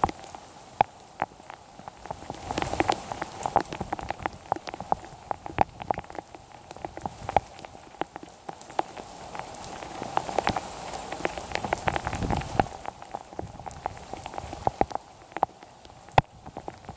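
Heavy rain falling steadily, with many sharp, irregular taps of drops landing close to the microphone.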